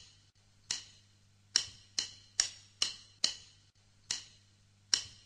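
A series of sharp single click sound effects, about eight at uneven spacing, each dying away quickly, over a faint low hum; one click marks each letter of a name appearing on screen.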